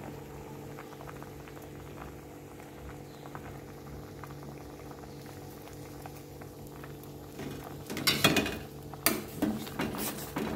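Vegetable soup boiling hard in a stainless steel pot, a steady crackling bubble over a low hum. From about eight seconds in, a metal ladle stirs the soup and clatters against the pot several times, much louder than the boil.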